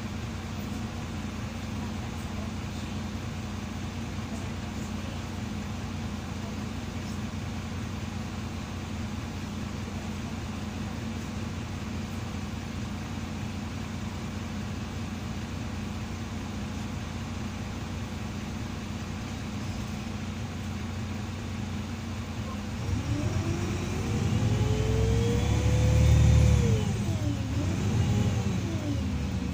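Karosa B 961E articulated city bus heard from inside the passenger cabin: the engine idles steadily while the bus stands, then near the end it pulls away, the engine getting louder and rising in pitch, dropping back at a gear change and rising again.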